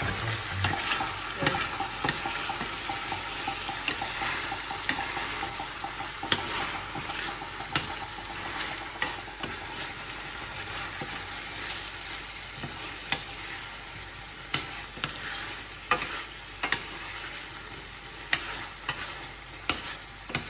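Food sizzling in a hot pan, a steady hiss, while a utensil stirs it and knocks sharply against the pan every second or two.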